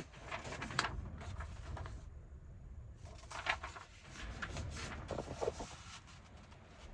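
Rummaging through craft supplies: paper and cardstock rustling and shuffling, with light clicks and knocks of things being handled and moved.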